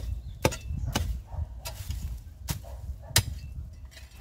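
Metal garden hoe chopping down into soil and cut grass in a planting pit, about six sharp strikes at an uneven pace, working the weeds into the earth so they rot as compost.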